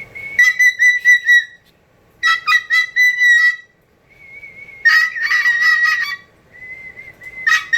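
Pet cockatoo whistling loudly and shrilly: four long whistles near the same high pitch, each with a rapid fluttering edge, taught as a deliberately annoying noise. Softer, plain whistle tones at the same pitch come between them.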